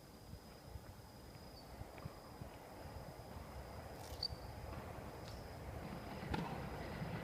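Outdoor ambience: a steady high insect chirr, with a low rumble that grows louder toward the end, like a train approaching, and a couple of sharp knocks in the second half.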